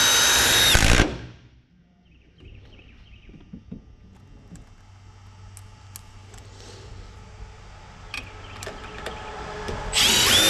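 Power drill driving screws to fasten an electrical box: a high whine that runs until about a second in and winds down, then small handling clicks, then a second run of the drill near the end.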